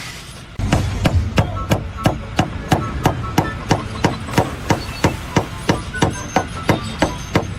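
A steady run of sharp hammer blows, about three a second, some with a brief metallic ring.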